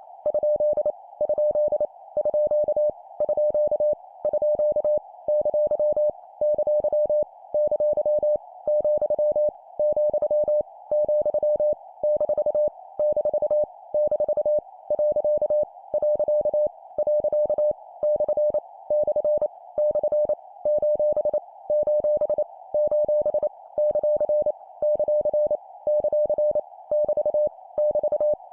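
Morse code (CW) practice tone at 25 words per minute: a single pitch keyed on and off in rapid dots and dashes, sending punctuation marks each repeated three times. A faint hiss fills the gaps between the elements.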